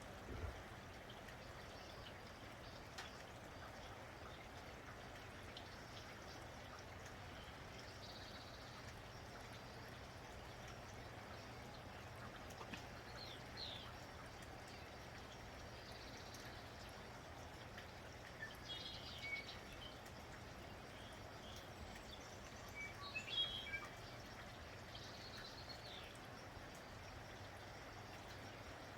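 Quiet, steady rain falling, with small birds giving short high chirps now and then, a few times through the stretch and loudest about two-thirds of the way in.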